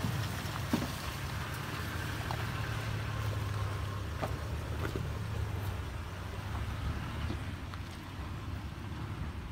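Toyota Tacoma pickup crawling slowly over a rutted dirt trail, its engine running low and steady, with scattered small clicks from the tyres on dirt and stones.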